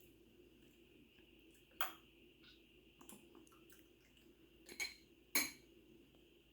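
A spoon clinking lightly against a dish: three sharp clinks and a few fainter ticks, over a faint steady hum.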